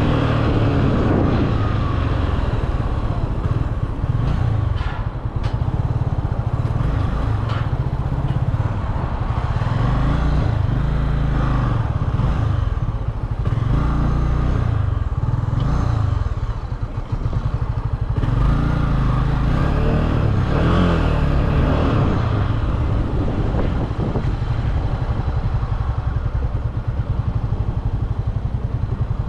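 Honda CB300F single-cylinder motorcycle engine running, its note rising and falling with the throttle, with a brief drop about 17 seconds in.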